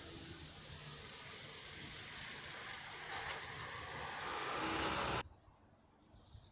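A vehicle approaching along the street, its rolling noise growing steadily louder, then cut off suddenly about five seconds in, leaving faint outdoor quiet with a brief high bird chirp near the end.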